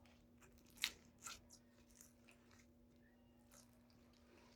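Slime being handled by hand: faint sticky squishes and crackles, the clearest just under a second in, otherwise near silence.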